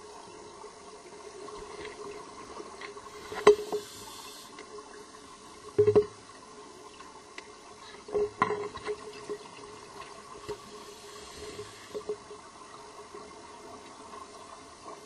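Underwater, a scuba diver's exhaled air bubbling out of the regulator in a few loud gurgling bursts a few seconds apart, over a steady faint hum.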